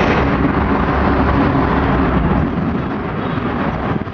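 Loud, steady road traffic noise from vehicles passing close by, with a low engine rumble underneath.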